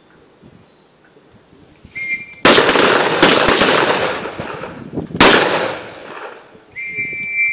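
A short whistle blast, then a ragged volley of rifle shots from several shooters firing at once, each shot ringing out in a long echo, and another single loud shot about five seconds in. Near the end comes a longer whistle blast.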